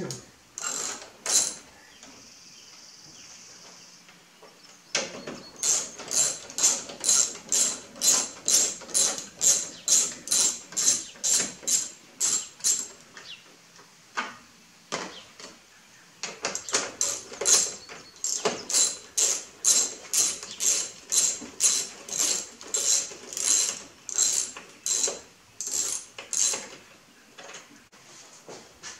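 Hand ratchet wrench clicking in two long runs of about two strokes a second, with a short pause between them, as it turns fasteners on the car's plastic radiator cover panel.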